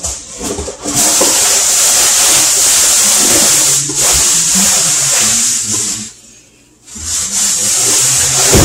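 Loud rustling of cardboard and plastic packaging as frozen burger patties are pulled from their box. It runs for about five seconds, stops briefly, then starts again for a few seconds more.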